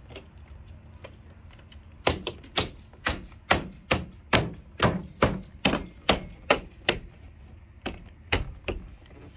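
Hand striking a plastic roof rail cover again and again to snap it down onto its mounting clips: a quick run of sharp knocks, about three a second, starting about two seconds in, pausing near seven seconds and starting again near the end.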